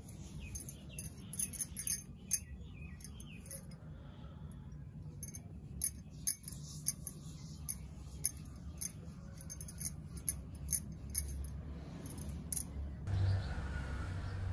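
Bangles on the wrists clinking and jingling in quick, irregular clicks as the hands roll small balls of gulab jamun dough between the palms. Near the end the clinking thins out and a steady low background hum takes over.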